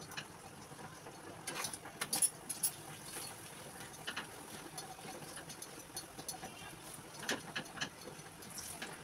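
Scattered light taps and scrapes of a metal spatula on a flat pan as a paratha is pressed and turned on a gas stove: a few quick clicks about a second and a half in, and more near the end.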